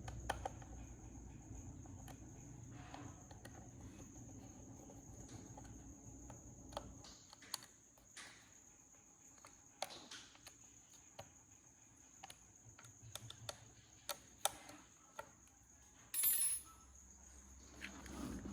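Faint, scattered light clicks and taps, over a low hum that stops about seven seconds in; a short high-pitched burst comes near the end.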